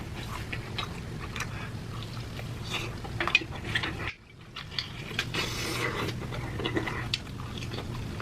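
Eating sounds: biting and chewing spicy chicken, with many small wet clicks and crackles. The sound drops out briefly about four seconds in.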